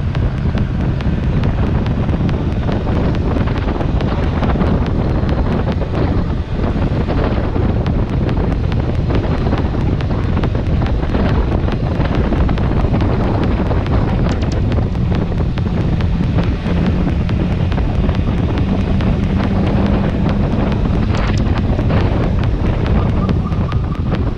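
Heavy wind buffeting the microphone while riding a motorcycle, with the BMW S1000XR's inline-four engine running underneath as a low steady hum that grows a little stronger for several seconds past the middle.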